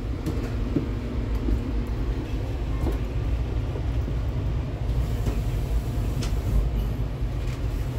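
Passenger train running along the track, heard from inside a railcar: a steady low rumble with a few faint clicks and rattles scattered through it.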